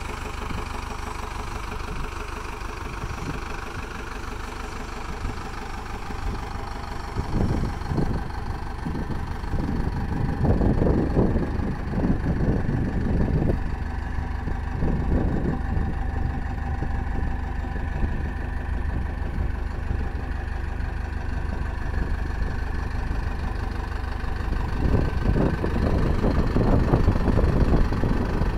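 Four-cylinder Cummins 4BT turbo diesel idling steadily. A louder, irregular rumble comes and goes, strongest about ten to thirteen seconds in and again near the end.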